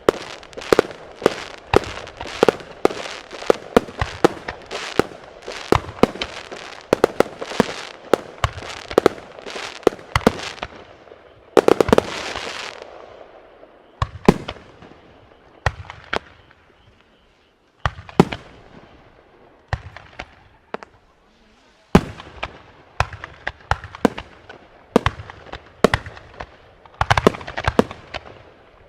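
Fireworks going off in a rapid volley of sharp bangs for about the first ten seconds. A loud burst follows, trailing a crackle, then single reports a second or two apart, and a fresh quick flurry near the end.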